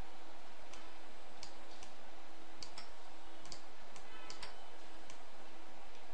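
Computer mouse clicks, about a dozen short sharp clicks at irregular intervals, over a steady hiss and a faint steady hum.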